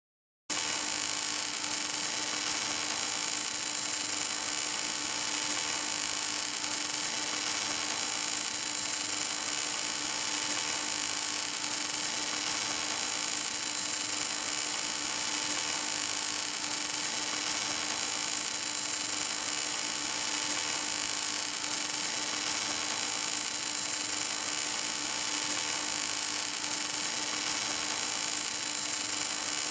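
MIG welding arc of an automatic pipe-welding tractor laying a weld on a steel pipe: a steady buzzing hiss with a constant hum under it, starting abruptly about half a second in.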